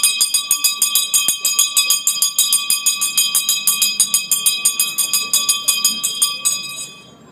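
Town crier's handbell rung rapidly, about eight strokes a second, to call a crowd to attention; the ringing stops and dies away near the end.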